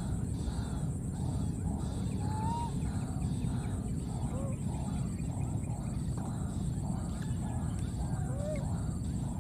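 Outdoor background noise with a repeating chatter of animal calls, about twice a second, and three short squeaky calls that rise and fall.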